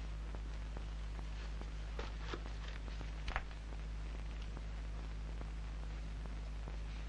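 Steady low hum and hiss of an old film soundtrack, with a few faint clicks about two and three seconds in.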